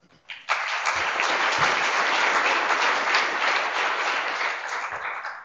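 Audience applauding, the clapping starting about half a second in and dying away near the end.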